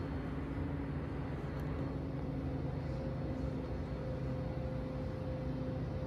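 Hunter Passport III ceiling fan running with only a steady low hum and a few faint steady tones, no clicking or rattling.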